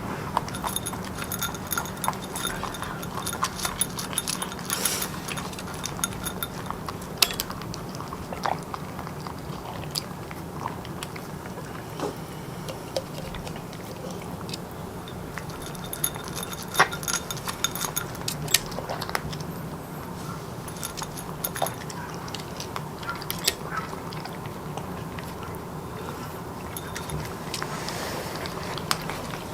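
A pet chewing and crunching its food, with many small sharp clicks and occasional light clinks, as of a food bowl, over a steady low hum.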